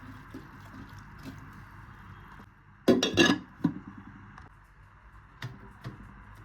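Kitchenware being handled: a louder clatter of a few quick knocks about three seconds in, and two light knocks near the end, over faint steady background noise.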